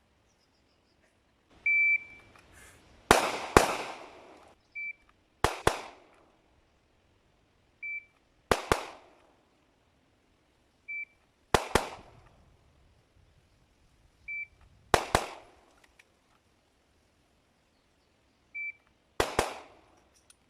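Shot-timer beep followed by a quick pair of shots from an airsoft gun, repeated six times, a few seconds apart. The beep is high-pitched and sounds a little under a second before each double tap.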